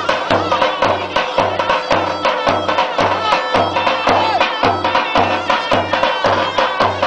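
Davul and zurna playing a folk dance tune for a line dance: a steady, even bass drumbeat under a loud reed melody full of bends and trills.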